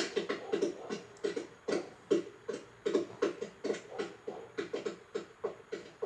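Cartoon sound effects for two pill bugs: a steady run of soft, quick taps, about three a second, like small feet on pebbly ground, played through a TV speaker into the room.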